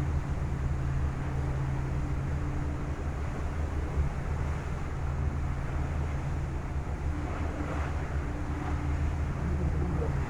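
Staten Island Ferry's engines giving a steady low drone with a faint steady hum above it, mixed with wind buffeting the microphone and the rush of bay water.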